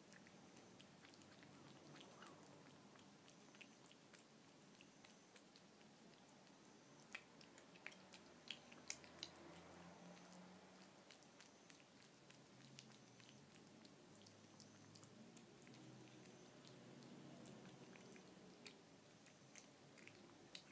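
A cat lapping and chewing wet food in broth from a dish: faint wet smacking and small clicks, with a run of sharper clicks about seven to nine seconds in.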